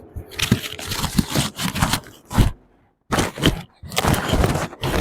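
Close, irregular crackling and rustling handling noise, a run of crinkly scrapes and knocks. It cuts out completely for about half a second midway, then resumes.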